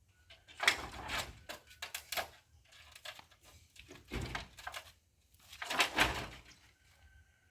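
Knocks and clattering scrapes of hand-tool work on a wooden structure, in two clusters about a second in and around six seconds, with a single dull thud in between.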